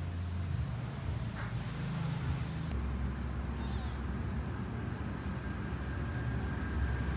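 Steady low traffic rumble, with two faint, short, high-pitched kitten mews, one about a second and a half in and another about four seconds in.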